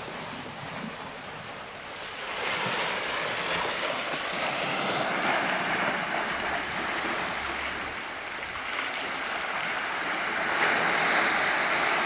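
Small sea waves washing in over a shore of rounded boulders and stones, a steady wash that grows louder about two seconds in and surges again near the end.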